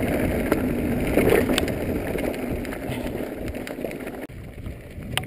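Mountain bike rolling fast over a loose gravel and dirt track: tyres rumbling over stones, with scattered rattles and knocks from the bike and wind on the microphone. The noise drops suddenly about four seconds in.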